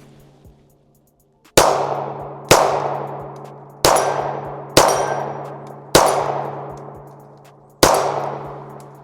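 Six gunshots, spaced one to two seconds apart, each followed by a long ringing decay as rounds strike a steel target.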